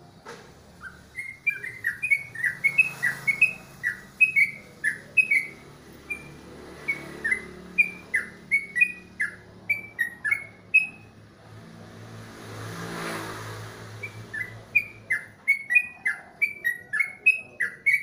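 Caged trucukan (yellow-vented bulbul) singing a fast run of short chirping notes, some sliding up and some sliding down. The song breaks off about two-thirds of the way through while a broad rushing noise swells and fades, then resumes.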